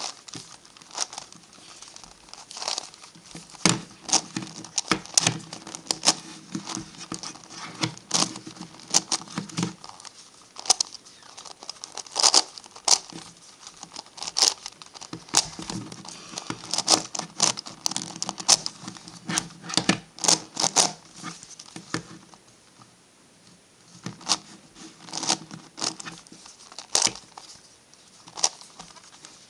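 MF8 Gigaminx plastic puzzle pieces clicking and clattering as its faces are twisted in quick runs of turns. The runs are broken by a short pause a little past two-thirds of the way in.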